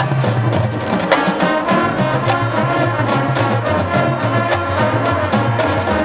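High school marching band playing: brass over drums and percussion, with a sharp hit about a second in.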